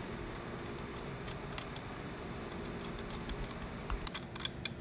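Faint clicks of small metal parts being handled as the gas regulator is unscrewed by hand from a Browning BAR rifle's gas cylinder, with a few sharper clicks near the end, over a steady faint hum.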